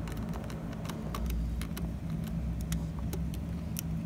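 Scattered light clicks and ticks of wires being pushed into a circuit board's screw terminal block, over a steady low mechanical hum.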